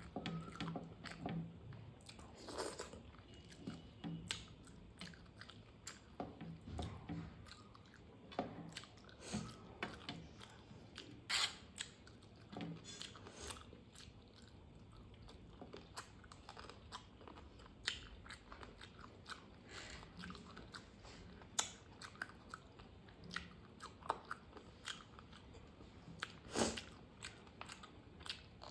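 A person chewing and biting food close to the microphone, with irregular sharp crunches and smacks every second or two.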